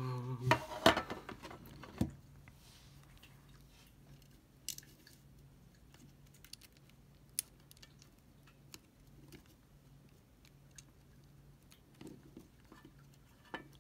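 Small clicks and taps of fingers handling an iPod Classic's hard drive and case while seating the drive's connector. There are two sharper clicks about one and two seconds in, then sparse faint ticks.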